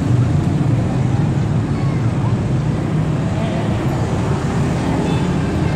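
Steady low engine drone, holding an even hum with no rise or fall.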